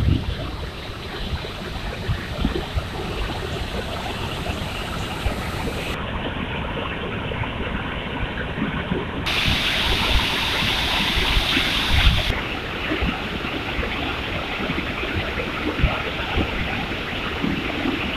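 Water pouring over a dam's overflow spillway and churning white below it: a steady rush that grows louder for a few seconds midway.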